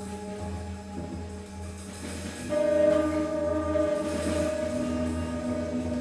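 Experimental music: layered sustained tones over a low pulsing hum, with faint fast clicking. A louder chord comes in about two and a half seconds in.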